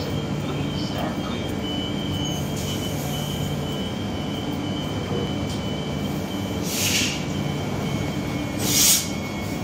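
Queensland Rail electric train standing at the platform with its doors closing, its equipment humming steadily under a thin high whine. Two short bursts of air hiss come about 7 and 9 seconds in, the second louder, as the train readies to pull away.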